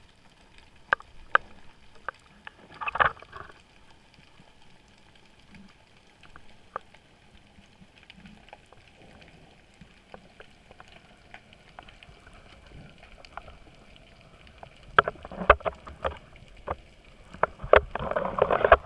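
Underwater, a camera rig on a rope knocking and clicking as it swings, with its metal clip and the line bumping against the housing; the knocks come scattered at first, then bunch into a louder rattle about fifteen seconds in and again near the end as the rig is handled.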